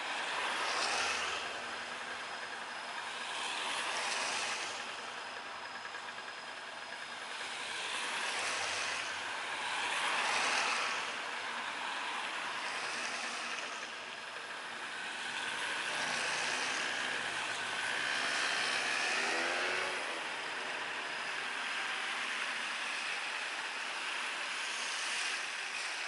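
Cars passing one after another on a wet street after rain, their tyres swishing on the wet road, the sound swelling and fading every few seconds. One passing vehicle adds a short engine whine that glides in pitch about three-quarters of the way through.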